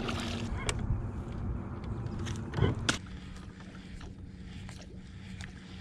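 A hooked bass splashing and thrashing at the water's surface beside the boat, with several sharp splashes, the loudest just before three seconds in. After that only a quieter, steady low hum remains.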